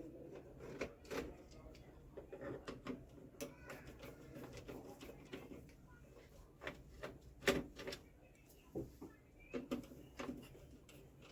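Scattered clicks and knocks of a screwdriver and hands working on a Canon LBP 2900 laser printer's plastic casing while its rear panel screws are taken out, at uneven intervals, the loudest knock about seven and a half seconds in.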